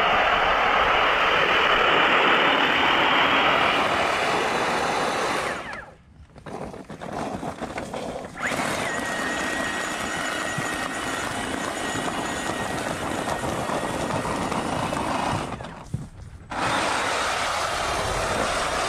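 Engine of an Exmark stand-on mower running steadily as it pushes a leaf plow through leaves. The sound drops away abruptly twice, about six and sixteen seconds in.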